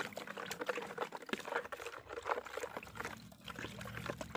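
Spoon stirring milky liquid in a basin: a quick, irregular run of clinks and scrapes with the liquid sloshing.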